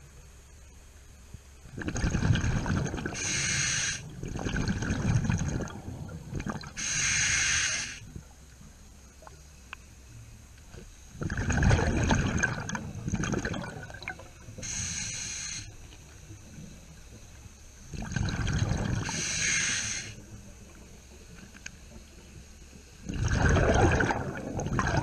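Scuba diver breathing through a regulator underwater: long bubbling exhales, four of them, alternating with shorter hissing inhales, one breath every six seconds or so.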